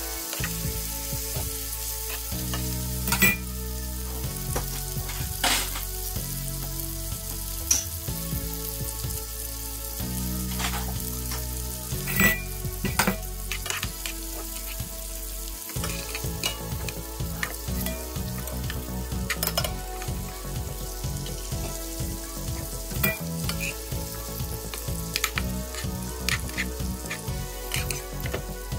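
Steaks and garlic sizzling steadily in hot fat in a nonstick frying pan, with a metal spoon clinking and scraping against the pan at irregular moments as the fat is basted over the meat.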